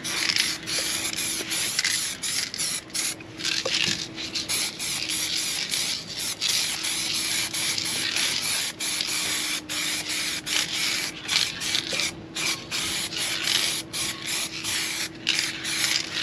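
Aerosol spray-paint can hissing in many short bursts with brief breaks between them, spraying black paint. A faint steady low hum sits underneath.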